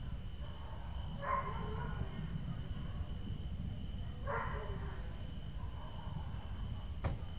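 Wind buffeting the microphone in a steady low rumble, over a thin steady insect drone. A dog barks twice, about a second in and about four seconds in, and there is a sharp click near the end.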